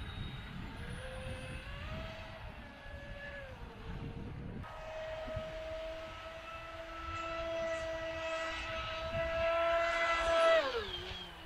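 Brushless 2080Kv outrunner motor of a Kyosho Jetstream 888VE RC speedboat, turning a two-blade 40 mm plastic propeller, whines at speed across the water. The whine is steady with overtones, grows louder toward the end, then drops sharply in pitch as the throttle comes off. Wind rumbles on the microphone underneath.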